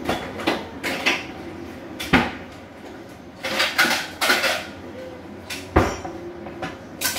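Kitchen clatter: dishes and cupboard doors knocking and clinking in a string of sharp knocks, busiest in the middle, with single loud knocks about two seconds in and near six seconds.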